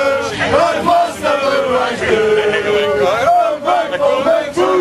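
A group of football supporters chanting a song together in unison, with long held notes, in a crowded train carriage.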